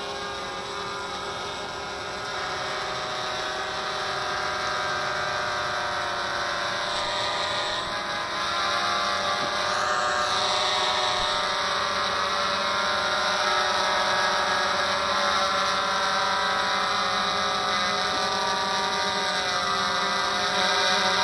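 Walkera QR X350 PRO quadcopter's four electric motors and propellers whining steadily in flight, several tones shifting slightly in pitch as the pilot steers. The hum grows louder about halfway through.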